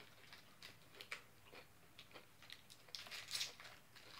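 Faint, scattered crinkling of a plastic MRE beef-stick wrapper being handled, with quiet chewing; a slightly louder run of crinkles about three seconds in.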